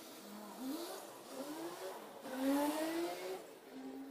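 A motor vehicle engine revving, its pitch rising in several sweeps, each one falling back before climbing again.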